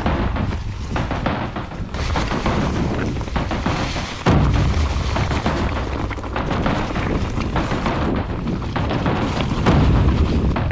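Mountain bike rattling and bumping down a rocky, leaf-covered dirt trail, with wind buffeting the handlebar camera's microphone as a heavy low rumble. There is a sudden louder jolt about four seconds in.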